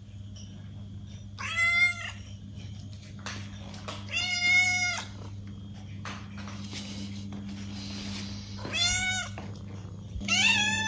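Domestic cat meowing: four separate meows a few seconds apart, each lasting about half a second to a second, the last one starting near the end. A steady low hum runs underneath.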